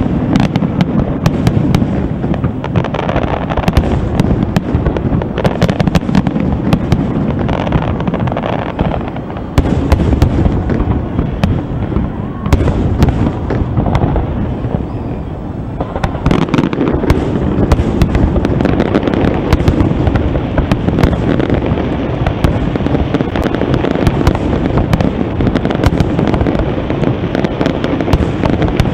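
Aerial fireworks shells bursting in rapid succession, many sharp bangs and pops running together without a break, thinning a little for a few seconds in the middle.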